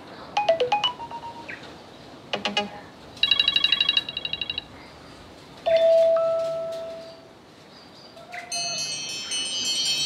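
iPhone 13 loudspeaker playing short previews of different text alert tones, one after another, as each is tapped in the tone list. There are a few chime notes, then a rapid run of beeps, then a single held tone that fades out, and near the end a cluster of bright overlapping tones.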